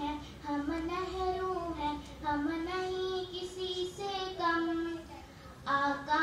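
A young girl singing a Hindi children's song solo, in held notes with phrases that break every second or two.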